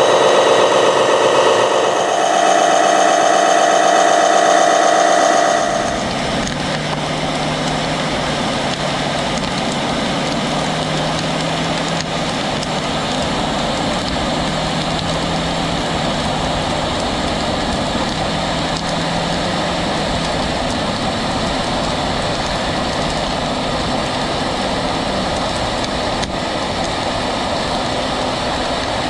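Radio-controlled fire truck sounds: a loud whine that shifts in pitch about two seconds in and stops about six seconds in, then a steady engine-like running with a low drone.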